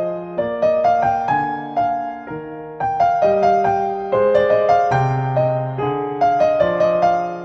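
Background music: solo piano playing an allemande, a steady flowing line of struck notes over a lower bass line.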